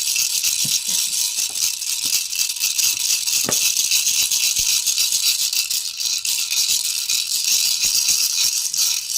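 Baby's toy rattle (jhunjhuna) shaken continuously: a fast, dense, high-pitched clatter of small pellets without a break.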